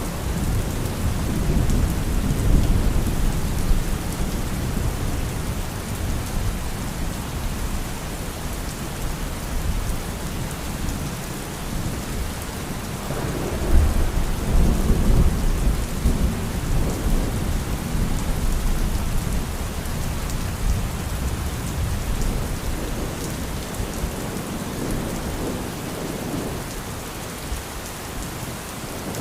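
Steady rain falling, with low rolling thunder underneath that swells about halfway through.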